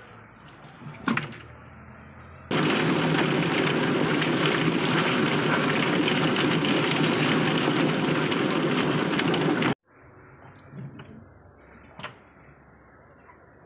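Drum-type chicken plucker running with a rooster inside: a loud, steady rushing noise as the spinning rubber-fingered drum tumbles the bird and strips its feathers. It starts sharply about two and a half seconds in and cuts off abruptly near ten seconds, with quieter moments and a few knocks before and after.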